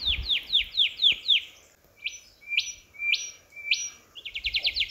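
Wild birds calling. First comes a run of quick falling notes at about four a second, then four separate rising notes about half a second apart, then a faster run of falling notes starting a little after four seconds in.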